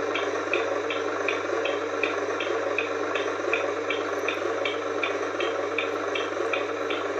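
RC Hino 500 truck's sound module playing a simulated diesel engine idling, through a small speaker: a steady hum with a regular light tick about three times a second.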